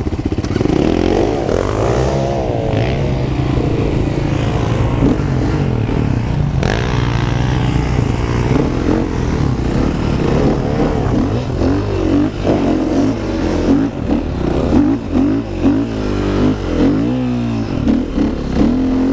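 KTM dirt bike engine revving as the bike pulls away and rides up a soft sand track, the note rising and falling with the throttle, in quicker repeated surges in the second half.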